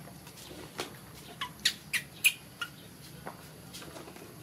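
Baby monkey squeaking: a quick run of short, high, sharp squeaks between about one and three seconds in, while it is being towel-dried.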